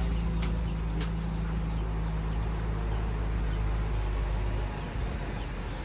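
Steady low hum of an idling motor-vehicle engine, with four sharp clicks in the first second. The hum drops off near the end.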